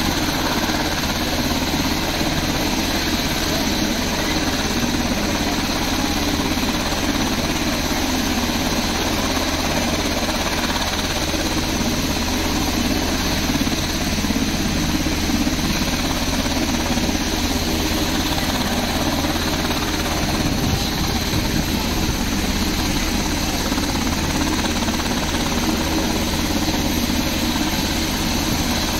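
Black Hawk helicopter running steadily on the ground with its rotor turning: a constant high whine from its twin turboshaft engines over a steady low rotor drone.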